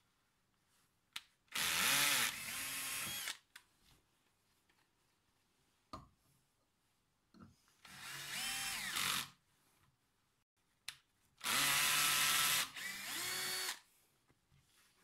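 Cordless drill boring into a thick aluminium plate in three short runs, its motor whining up to speed and easing off each time. A brief knock comes shortly before each run.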